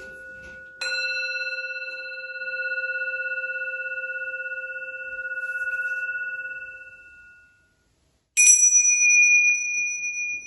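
A small Tibetan singing bowl (a head bowl) struck once with the wooden end of its mallet, ringing with several clear overtones and a gentle wavering, dying away over about seven seconds. Then a pair of tingsha cymbals is struck together once, ringing high and bright.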